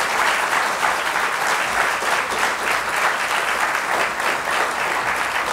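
Audience applauding: dense, steady clapping at an even loudness.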